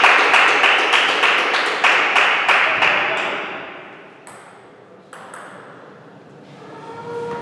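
Table tennis ball clicking about three times a second, sharp light knocks over a bright hiss. After about three seconds they thin out to a few scattered clicks and the sound falls quieter.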